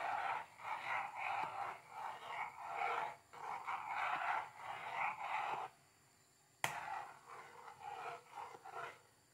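Metal spoon scraping and swishing around a metal pot, stirring milk-and-cornstarch natilla as it boils and thickens, at about two strokes a second. The stirring stops briefly, a sharp click follows about two-thirds of the way in, then softer stirring resumes.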